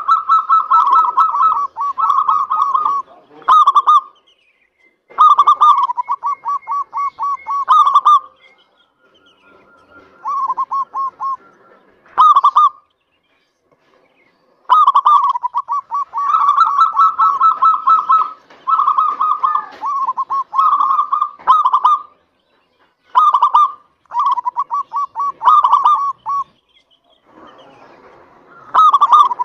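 Zebra dove (Indonesian local perkutut) singing: phrases of rapid, staccato cooing notes, each running a few seconds, broken by short pauses. Short high chirps sound over some of the phrases.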